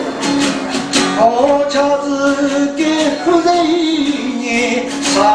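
A man singing live to a strummed acoustic guitar, holding long wavering notes over the strumming.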